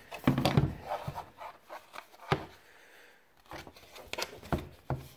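Hard plastic dash trim panel and a small light module being handled, with scattered clicks, taps and rubs of plastic on plastic as the light is fitted into its clip; one sharper knock comes a little before the middle.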